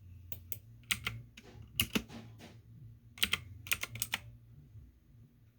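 Typing on a computer keyboard in a few short bursts of key clicks, with a faint low hum underneath.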